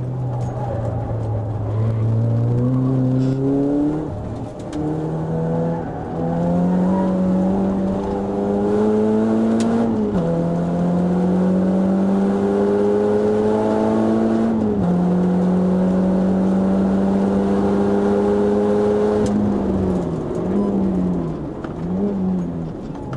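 Renault Clio RS four-cylinder engine heard from inside the cabin on track: it pulls hard through the gears, the revs climbing and dropping at upshifts about 4, 10 and 15 seconds in, then holding high. Near the end it comes off the throttle, with two quick throttle blips as it downshifts for a corner.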